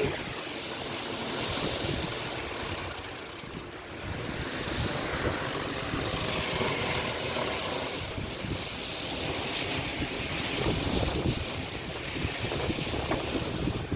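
Storm wind of about 25 m/s howling and buffeting the microphone in slow swells, with the rushing whir of small wind turbine rotors spinning fast in the gale.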